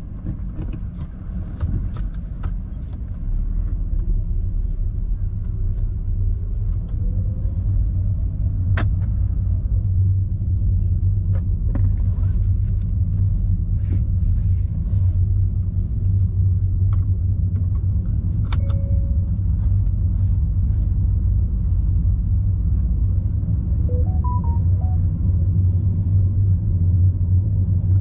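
Low, steady rumble of a car heard from inside the cabin as it drives slowly, getting louder a few seconds in, with scattered light clicks and rattles.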